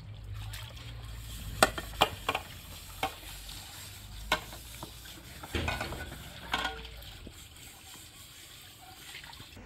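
Dishes being washed by hand in a plastic basin: a steel tray and dishes clink and scrape against each other, with about half a dozen sharp clinks in the first seven seconds over a faint steady hiss of water.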